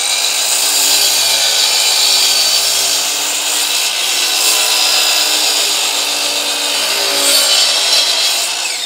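Miter saw running at full speed while its blade makes an angled cut through a wooden ceiling beam. Its motor whines down with a falling pitch at the very end.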